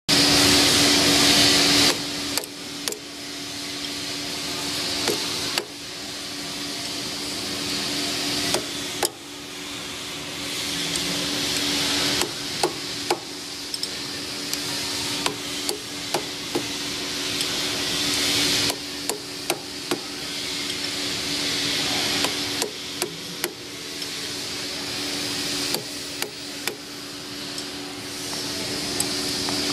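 Soft-faced mallet tapping repeatedly on a lathe's three-jaw hydraulic chuck: irregular sharp knocks, some in quick pairs, over a steady machine hiss and a low hum.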